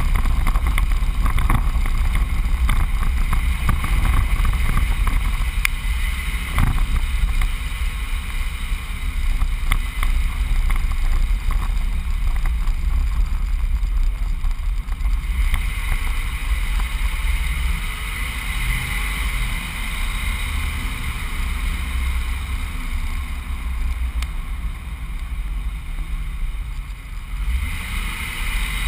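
A truck driving, heard from a camera mounted on it: a steady low rumble of engine and road noise with some wind noise, and a few light knocks in the first seven seconds.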